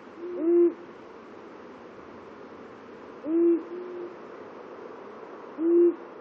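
Two male long-eared owls hooting: one gives three loud, short, low hoots about two and a half seconds apart, and the other answers with fainter hoots just after the first two. The hoots are the males' territorial song, traded across a territory border.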